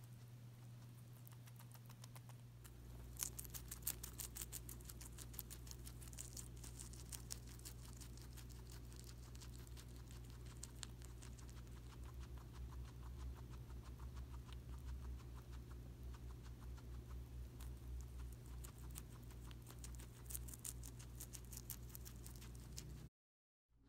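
Guinea pig chewing: a fast, steady run of small clicks and crunches from its teeth, first on a slice of tomato, then on leafy greens. It cuts out briefly near the end.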